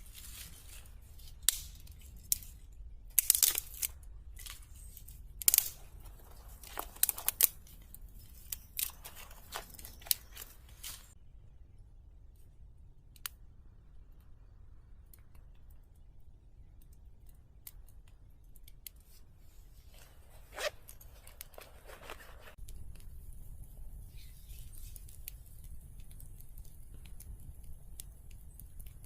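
A run of sharp, crisp snipping and tearing sounds, irregular and close, over the first ten seconds or so. After that it goes quieter, with one more snap and a faint steady high hiss starting near the end.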